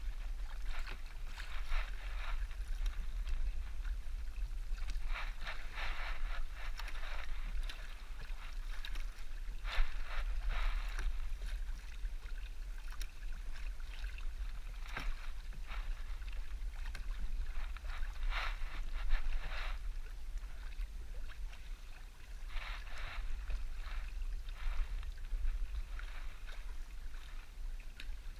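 Canoe paddle strokes through water: a splashy swish with each stroke, coming back every few seconds. A steady low rumble of wind on the microphone runs underneath.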